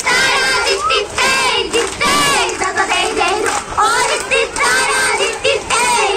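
A group of young children singing a Kerala boat song (vanchipattu) together in chorus.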